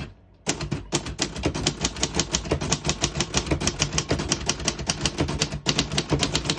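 Keys of a 1950 Royal Quiet De Luxe manual portable typewriter being typed in a fast, even run of clicks, about six a second, starting about half a second in, with a brief pause near the end.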